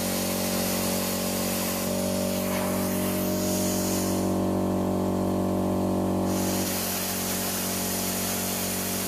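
Stahlwerk CT 520 P plasma cutter cutting through sheet steel: a steady hiss of the air-plasma jet over a buzzing electrical hum. The high hiss thins for a couple of seconds midway, then returns.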